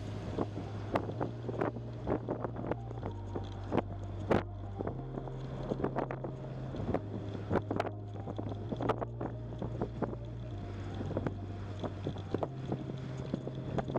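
Background music: a low bass note stepping to a new pitch about every two seconds, with frequent sharp percussive hits.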